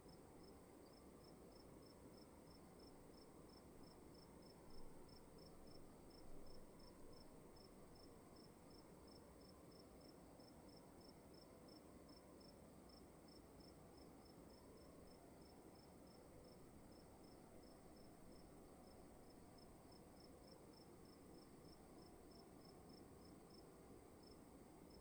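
Crickets chirping faintly in a steady run of evenly spaced chirps, a few a second, over a continuous high trill and a low hiss of room tone.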